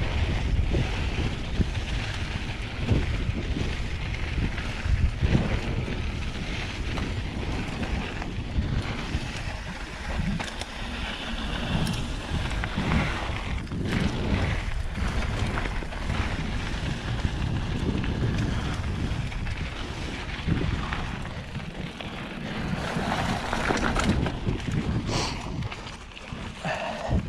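Mountain bike rolling fast down a dirt singletrack: wind buffeting the camera microphone and knobby tyres on dirt, with frequent short knocks and rattles from the bike over bumps.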